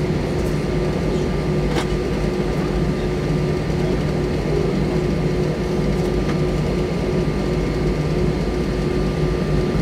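Airbus A320 cabin noise heard from a window seat over the wing as the jet rolls along on the ground: a steady engine rumble with a few constant tones from the engines at low, unchanging power, and a couple of faint ticks.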